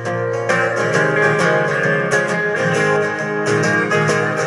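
Several acoustic guitars strumming and picking an instrumental passage of a slow folk song, played live, between the sung lines.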